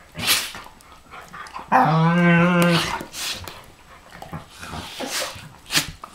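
Two dogs, a Pharaoh Hound and a Rhodesian Ridgeback, play-fighting: a short huff, then one long, even-pitched moaning growl of about a second, followed by sharp huffs and snaps as they mouth at each other.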